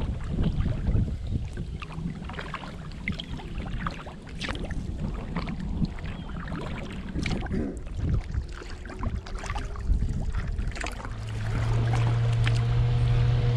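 Kayak paddle strokes splashing and dripping, with water lapping at the hull and wind rumbling on the microphone. A steady low drone comes in near the end.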